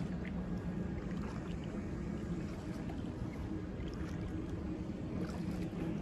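Steady rumbling noise of paddling an inflatable kayak, with a few faint drips and splashes from the paddle.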